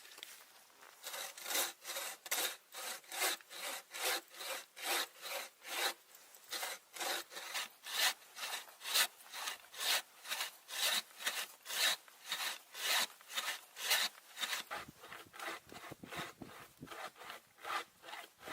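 Hand saw cutting through wood in steady back-and-forth strokes, about two to three a second, starting about a second in. The strokes become lighter for the last few seconds.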